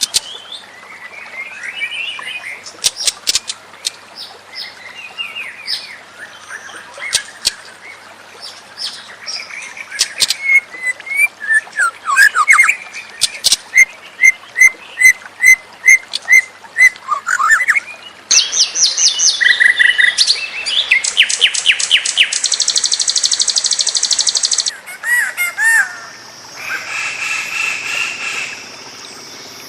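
White-rumped shama singing a long, varied song: fluty whistled phrases and sharp clicks, then a run of repeated notes at about two a second, then rapid buzzy rattling trills. Near the end the song changes to steady high tones over a buzzy chatter.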